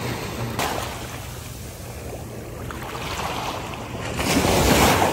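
Small sea waves breaking and washing up the sand at the water's edge, a hissing wash that swells to its loudest near the end as a wave surges in. Wind rumbles on the microphone.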